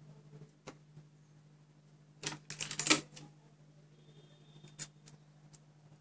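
Paper and thin wire being handled and twisted by hand: scattered small clicks, with a loud burst of crackling rustle about two and a half seconds in.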